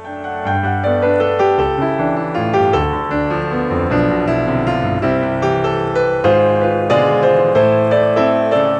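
Background piano music: a steady run of piano notes with a low bass line.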